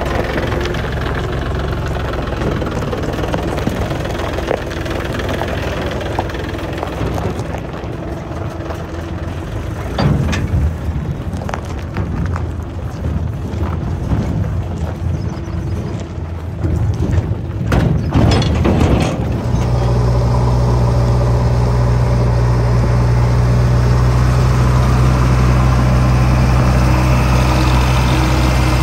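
Diesel engines running, with a few sharp knocks and clanks in the first two-thirds. About two-thirds in, the sound changes to the steady, loud running of a JCB 3DX backhoe loader's diesel engine as it drives.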